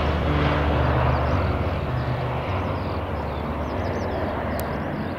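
Antonov An-26's two Ivchenko AI-24 turboprop engines and propellers droning with a low hum as the plane climbs away. The sound fades slowly.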